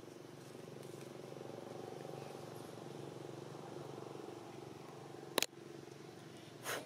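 A steady low mechanical hum, like a distant motor running. A single sharp click about five seconds in and a short burst of noise near the end.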